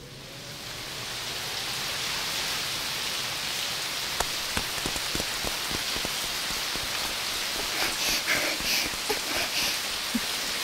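Heavy rain pouring down as a steady hiss, swelling up over the first couple of seconds.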